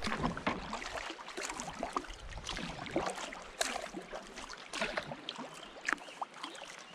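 Kayak paddle blades dipping into river water: irregular small splashes and drips.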